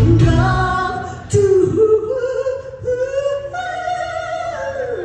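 A solo singer singing into a handheld microphone through the PA. The backing music falls away in the first second, leaving the voice almost unaccompanied. The voice climbs to a long high note held near the end.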